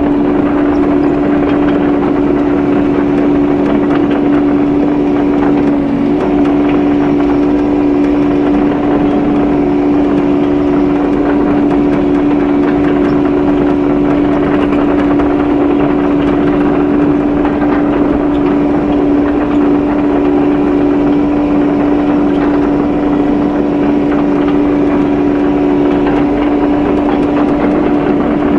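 Kubota KX080-3 excavator's diesel engine running steadily under working load, a constant hum with a strong steady tone, heard from inside the operator's cab.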